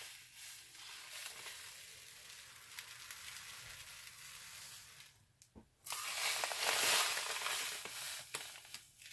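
Loose salt being scooped from a plastic bag with a plastic measuring scoop and poured into a plastic bowl, a steady grainy hiss. It breaks off briefly about five seconds in, then comes back louder.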